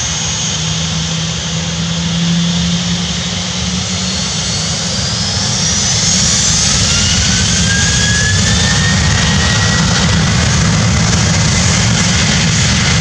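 Boeing 737-800's CFM56-7B turbofan jet engines spooling up to takeoff thrust: a loud steady jet noise with a whine that rises in pitch about halfway through, and the sound grows louder as the takeoff roll begins.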